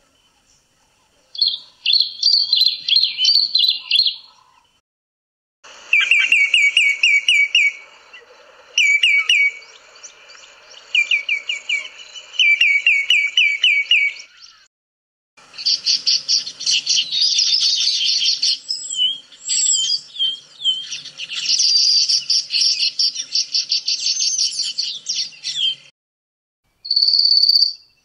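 Recordings of several different southern African bird species' calls played one after another, with short silent gaps between them. First comes a short burst of chirping. Then a call repeated as a run of quick descending phrases, then a long, dense song, and another call starts near the end.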